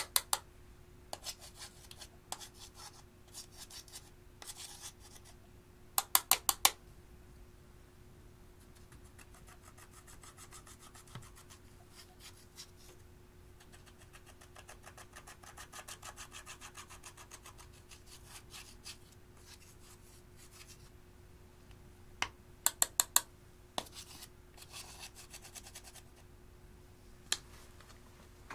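Pressed eyeshadow being scraped and crumbled out of plastic palette pans with a small metal tool: a dry, rasping scrape that comes and goes. Quick runs of sharp tapping clicks come around 6 seconds in and again near 22 seconds.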